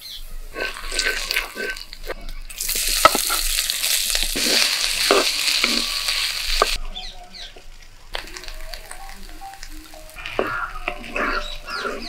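Food frying in hot oil in a pan while it is stirred, with a spoon clicking and scraping against the pan. About two and a half seconds in, a loud sizzle starts suddenly, lasts about four seconds, then stops sharply.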